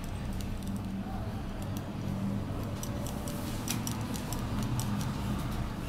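Stiff-bristle brush scrubbing paint in small circles over a textured papier-mâché relief, giving irregular scratchy ticks over a low steady background hum.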